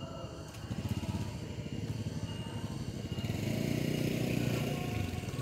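A small engine running, growing louder about three seconds in and easing off near the end.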